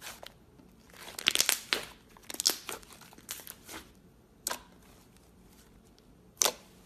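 Hands squeezing and folding thick green slime, which crackles in clusters of sharp pops for the first few seconds, then gives two single loud pops, one in the middle and one near the end.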